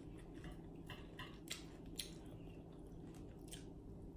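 Faint close-up eating sounds: chewing and mouth smacks, with several short sharp clicks spread through, over a low steady hum.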